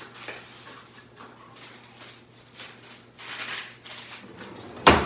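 Someone rummaging off to the side in a kitchen: faint shuffling and a rustle about three seconds in, then one sharp knock near the end, like a drawer or cupboard being shut.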